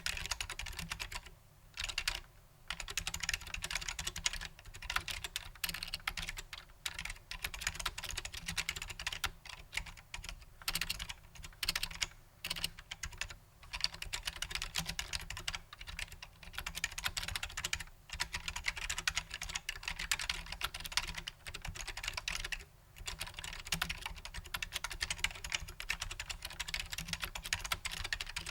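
Continuous typing on a Matias Quiet Pro mechanical keyboard with Alps-clone switches: a dense run of keystroke clicks, pausing briefly about two seconds in and again later on.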